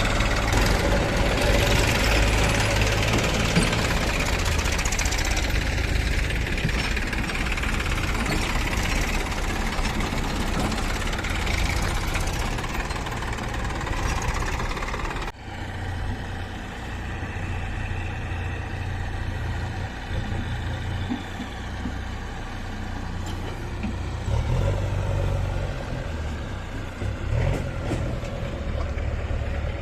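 Diesel engines of a backhoe loader and tractors running, with an abrupt break about halfway through after which the sound changes.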